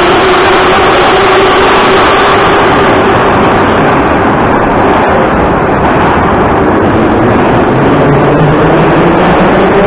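Moscow Metro train pulling out of the station: a loud rumble of wheels on rail with a traction-motor whine that fades over the first few seconds as the train goes into the tunnel. From about seven seconds in a new whine rises in pitch: another train drawing in on the other track.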